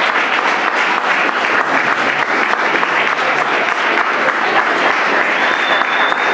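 Audience applauding, a steady dense clapping from many hands.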